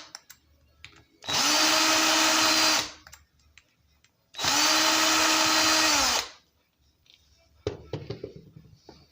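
Electric drill-driver backing out the small screws of a chainsaw carburetor in two runs of about a second and a half each, the motor spinning up and winding down each time. A few small clicks follow near the end.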